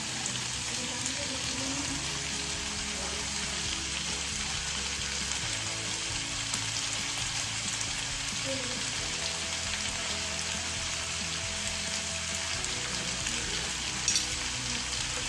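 Boiled chickpeas and spice masala sizzling steadily in ghee in a frying pan on the stove, with a short knock near the end.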